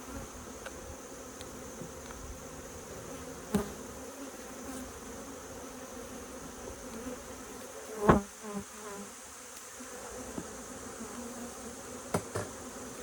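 Swarm of honeybees buzzing steadily around an opened hive, with a few sharp knocks, the loudest about eight seconds in.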